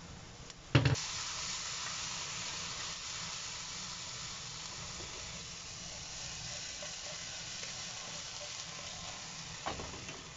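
A sharp clack of the glass lid about a second in, then bean sprouts and a bacon-and-egg sizzling steadily in an uncovered frying pan. A smaller clack comes near the end.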